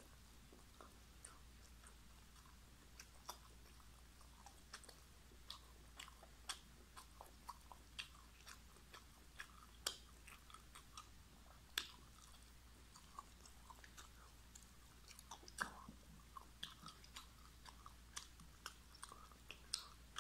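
Close-miked mouth sounds of chewing soft chicken: irregular wet clicks and smacks, a few louder than the rest, over a faint steady low hum.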